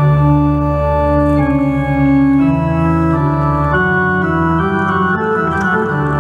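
Pipe organ playing loud, sustained full chords over a deep pedal bass, the chords changing every second or so.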